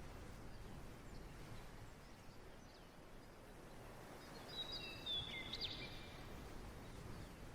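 Faint steady background noise, with a short burst of high chirps from a bird about halfway through.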